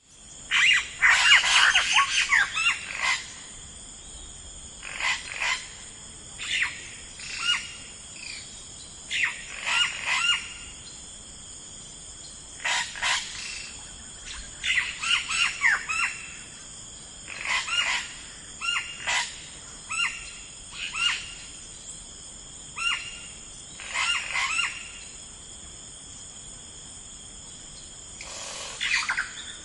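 Songbirds chirping in short phrases of quick falling notes, one every second or two, with the loudest burst in the first few seconds, over a steady high-pitched insect-like drone.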